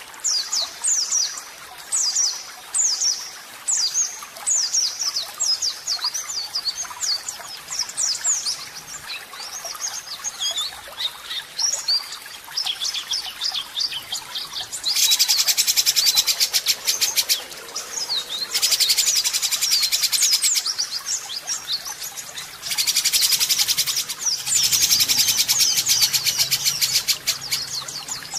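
Songbird singing a fast, varied song of quick sweeping whistled notes, then breaking into loud, rough, rapid rattling bursts, the harsh "tembakan" (shot) phrases prized in shama training song, each lasting a few seconds with short pauses between.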